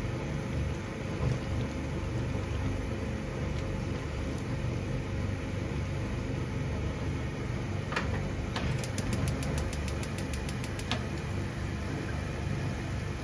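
Steady low mechanical hum. About eight seconds in come a couple of single clicks, then a run of quick ticks, about six a second, lasting about two seconds.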